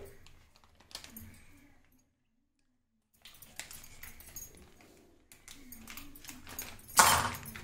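Handling noises from a kitchen knife and a plastic packet of popcorn kernels being cut open: scattered clicks and rustling, with a short, loud, harsh burst near the end.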